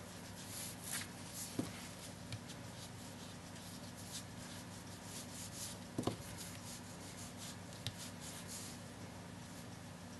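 Faint rubbing and dabbing of a small ink applicator on card stock, in short soft strokes. There is a sharper tap about six seconds in as it is pressed onto the ink pad, and a small tick near the end.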